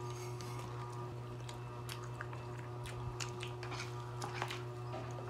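People chewing fried chicken and spaghetti, with scattered short mouth clicks and soft eating noises, over a steady low hum.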